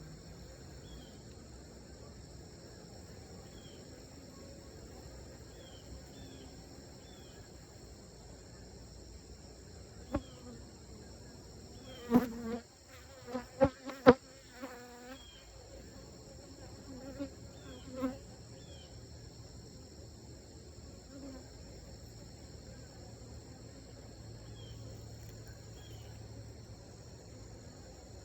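Honeybees buzzing around an open hive. Between about 10 and 18 seconds in, several bees fly close past with louder, pitched buzzes, and a few sharp knocks are heard. A steady high-pitched insect drone runs underneath.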